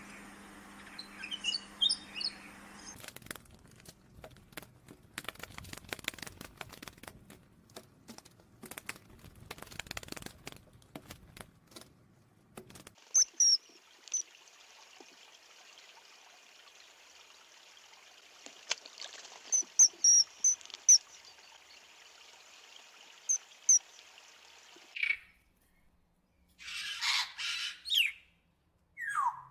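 Birds chirping in short high calls, heard across several separate recordings, with a stretch of irregular clicks and rustling in between.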